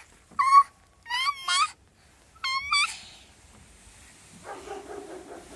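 A toddler's short, high-pitched squeals of delight, each rising in pitch, about five in the first three seconds, followed by softer, lower voice sounds near the end.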